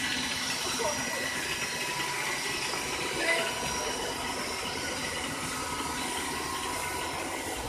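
Charter motorcoach rolling slowly past, a steady mix of engine noise and hiss, with faint voices underneath.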